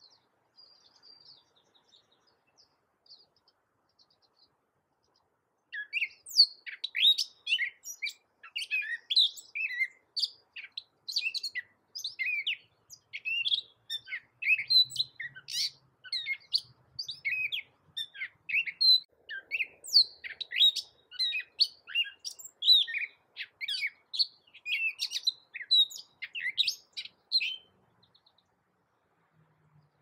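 Gray catbird singing: a long, rambling run of quick, varied notes that keeps changing pitch. A few faint notes come first, and the full song starts about six seconds in and stops shortly before the end.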